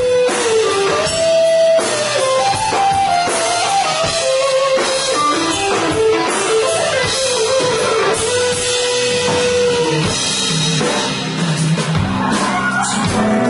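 A rock band playing live: guitars and a drum kit, with a melodic lead line of held and sliding notes carried over them.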